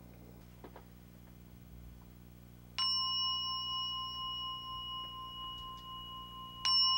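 Buddhist singing bowl on a brocade cushion struck with a cloth-padded striker, about three seconds in and again near the end. Each strike rings on with a clear, lingering tone of several steady pitches.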